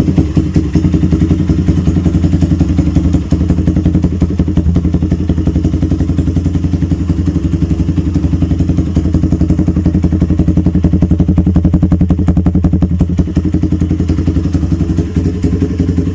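Motorstar Z200 motorcycle idling steadily through an aftermarket Termignoni slip-on exhaust muffler: an even, rapid exhaust beat that stays at one pitch. The idle note is still fairly tame but crisp.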